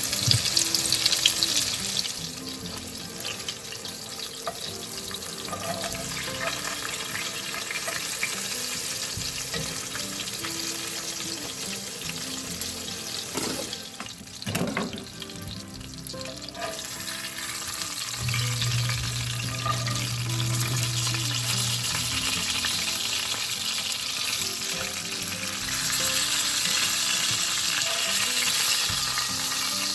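Cornmeal-dredged catfish fillets frying in hot oil: a steady sizzle, a little louder in the first couple of seconds and again over the last few.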